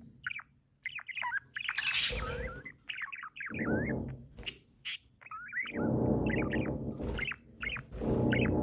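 Budgerigar warbling: a fast run of short, bending chirps and squawks, broken by louder, harsher scratchy stretches, the chattering song of a contented pet budgie.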